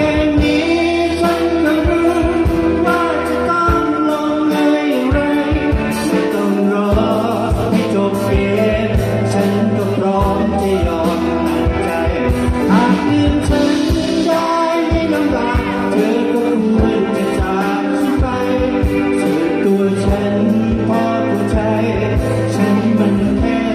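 Live band playing a rock song on electric guitar, keyboard and drum kit, with a steady drum beat.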